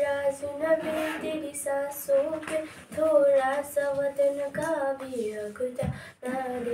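A young girl singing a slow song alone, holding long notes, with a short break for breath near the end.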